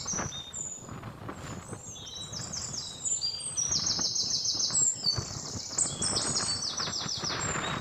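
Birds chirping in quick runs of short high notes, one run after another, over a steady background hiss.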